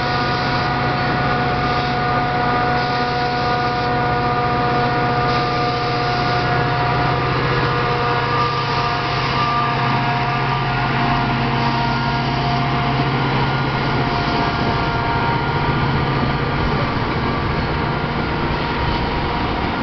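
Metra F40PH diesel locomotive's engine running with a steady whine over a low drone as it passes. The whine fades through the middle and the drone drops away near the end as the bilevel passenger cars roll by.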